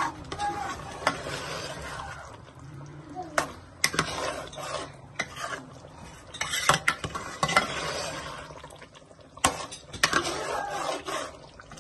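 A spoon stirring and scraping chicken breast bhuna in a pan as it fries, with sharp clinks of the spoon against the pan now and then.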